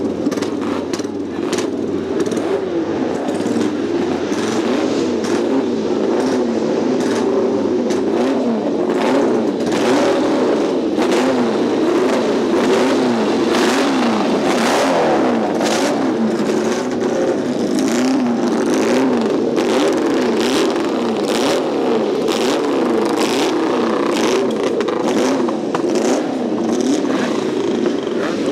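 Several race motorcycle engines running together, their pitch rising and falling again and again as they are revved, with frequent short sharp cracks.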